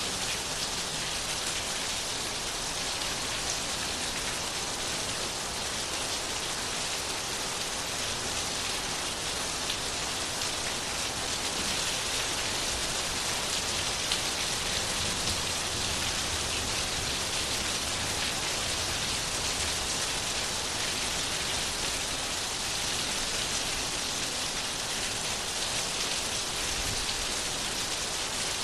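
Steady rain falling on a surface: an even hiss with many fine drop ticks, unchanging throughout.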